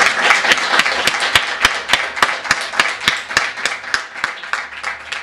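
Small crowd applauding, with sharp individual claps standing out above the rest, thinning out and dying down toward the end.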